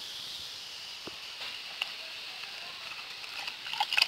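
Water sloshing and splashing in a plastic bucket as a puppy is bathed in it, with a few quick splashes near the end over a steady high hiss.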